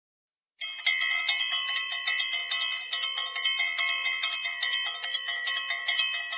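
Bicycle bell rung over and over in quick strikes, ringing without a break. It starts abruptly about half a second in.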